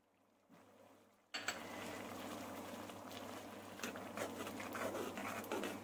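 A metal ladle stirring grated cheese into a thick sauce in a metal kadai: wet sloshing of the sauce with many clinks and scrapes of metal on the pan, starting suddenly about a second and a half in after a quiet start.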